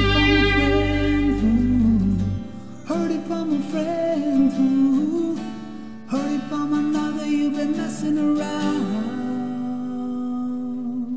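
Rock band cover music: heavy bass under the band until about two seconds in, then voices singing over guitars and keyboard, closing on a held chord that fades out near the end.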